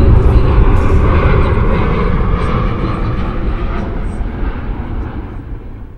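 Jet airliner engine noise, a loud, deep, steady rumble that fades away gradually.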